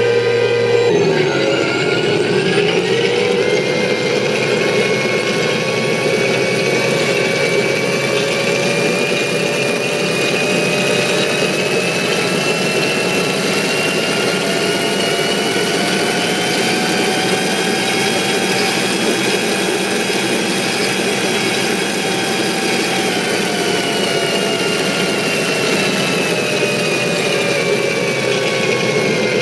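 Simulated M1A2 Abrams gas-turbine engine sound from an RC tank sound board, played through its speaker: a steady engine whine that climbs slowly in pitch, holds for several seconds, then falls back near the end.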